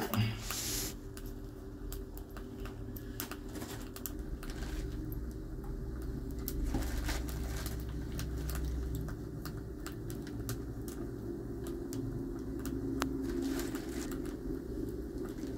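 Light, irregular clicks and crackles from a small plastic bag of cloves being handled beside a smouldering coconut offering on an iron brazier, over a low steady rumble. There is a louder short rustle right at the start.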